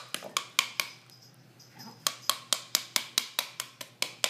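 A heavy spoon beating the back of a halved pomegranate held seed side down over a bowl, knocking the seeds loose. Quick, even taps, about four or five a second, pause for about a second near the start and then resume.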